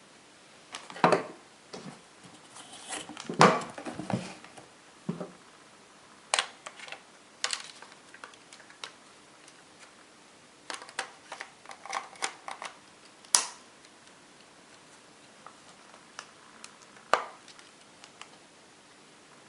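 Irregular clicks, taps and plastic rustling from handling a newly unboxed camcorder battery and its packaging, with a sharp click about thirteen seconds in.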